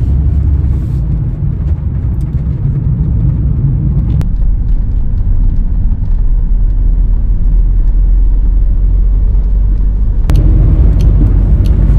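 VW T6.1 camper van driving on a country lane: a steady low rumble of engine and tyre noise. Its character changes abruptly about four seconds in and again near the end, each time with a sharp click.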